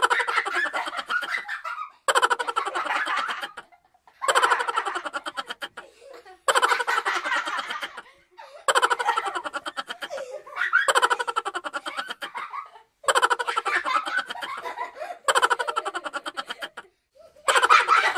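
Laugh sound effects: a string of separate laughing clips, about two seconds each, following one another with short gaps, each a rapid run of ha-ha pulses.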